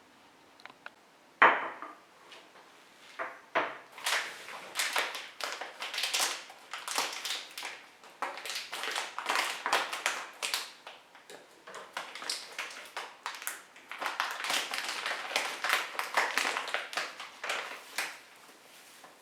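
Kitchen utensils and dishes being handled: one sharp knock about a second and a half in, then a long run of quick, irregular taps and scrapes.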